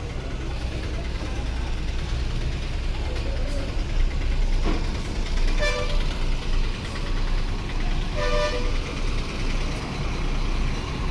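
Low steady rumble of bus engines, with two vehicle horn toots: a short one about six seconds in and a slightly longer one a couple of seconds later.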